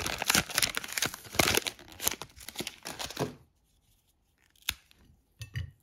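Chocolate block's foil inner wrapper being torn open and crinkled, a dense crackling for about three and a half seconds, then a few faint clicks.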